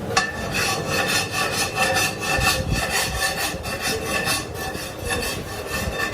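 Hand scraping or filing of a metal wheel rim in quick, even strokes, with the rim ringing under them.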